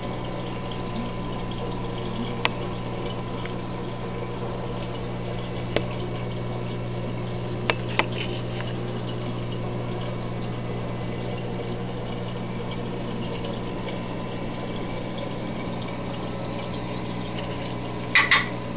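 Reef aquarium pump running: a steady low hum over a constant wash of moving water, broken by a few faint clicks and a sharper double click near the end.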